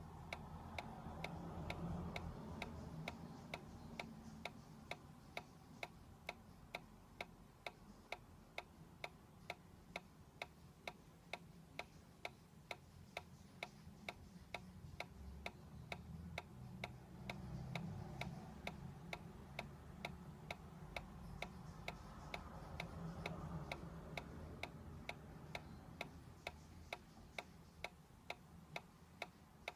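Solar-powered dancing toy ticking steadily, about two ticks a second, as its drive pulses to rock the figure back and forth.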